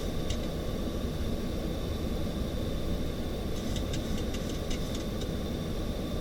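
Steady airflow and engine noise in the cockpit of a Boeing 737-800 on approach, mostly a low rumble with a faint steady high whine. A few faint ticks come about four to five seconds in.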